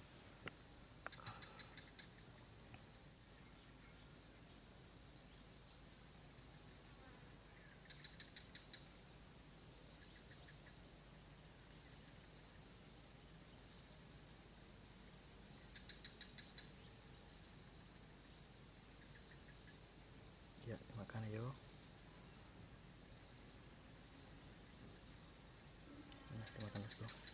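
Faint, steady high-pitched chorus of insects in a swampy field, with a few short chirping trills now and then. A brief low voice about three-quarters of the way through and again at the very end.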